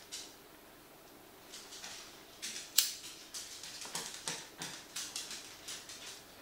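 Small handling clicks and rustles from hands working wires and a lit lighter, with one sharp click about three seconds in.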